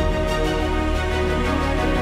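Background music: an electronic theme with sustained chords and a steady beat.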